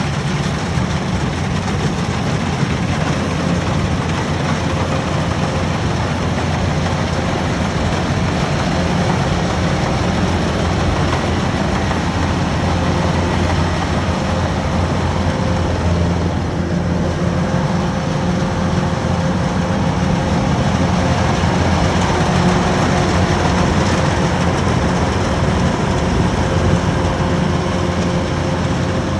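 Kubota DC-105X rice combine harvester running steadily while harvesting, a continuous engine and machinery drone with a strong low hum.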